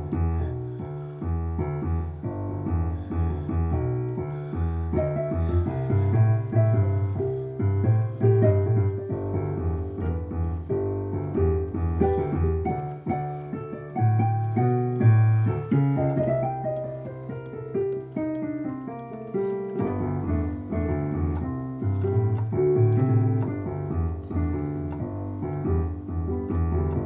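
Solo piano playing the introduction to a slow song: chords over a bass line struck in a steady rhythm.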